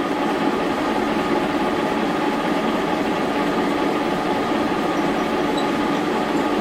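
Brown & Sharpe horizontal milling machine running steadily with its drill spindle turning, a constant mechanical hum with several held tones.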